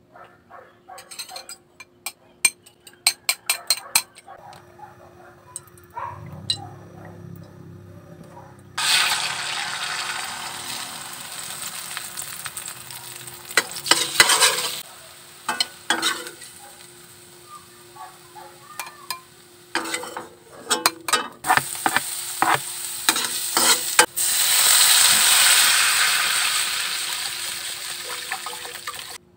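A fork beating eggs against a ceramic bowl in quick clicks. Then the beaten egg hits hot oil in a metal wok and sizzles loudly, with a spatula clinking and scraping as it is turned. Later chopped garlic and shallots sizzle in the oil.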